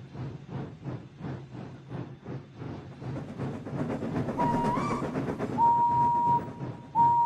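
Steam locomotive chuffing in an even beat of about four a second, growing louder, with a steam whistle: a short blast about four and a half seconds in, a longer one near six seconds, and another just at the end.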